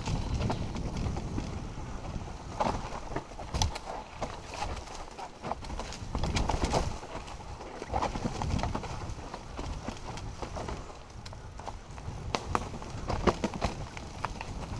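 Mountain bike clattering down a rocky, leaf-covered trail: tyres knocking over rocks and roots, with irregular sharp clicks and rattles from the bike over a steady low tyre and wind noise.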